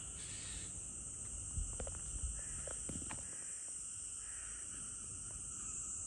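A steady, high-pitched insect chorus with a few brief bird calls about two to three seconds in. Two soft low thumps, the loudest sounds, come about a second and a half and two seconds in.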